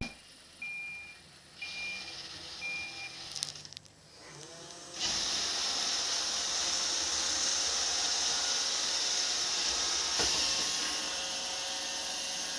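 Roomba robot vacuum cleaner starting up: three short beeps, a few clicks, then its motors spin up about five seconds in and run with a steady high whir.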